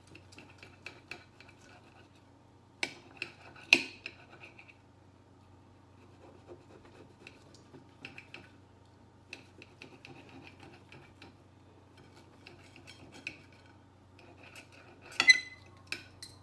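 A knife cutting cooked steak into strips, the blade scraping and clicking on the surface beneath, with a few louder clacks about three and four seconds in and again near the end.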